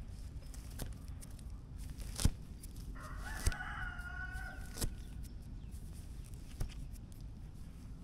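A rooster crowing once, one call of about two seconds near the middle. Scattered clicks and rustles of clothing and dry brush as burrs are picked off a pant leg.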